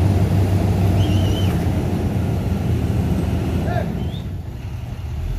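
International MV garbage truck's diesel engine running steadily behind its rear-loader packer body, a low hum that eases off briefly about four seconds in. Two short high chirps sound over it, one about a second in and one near four seconds.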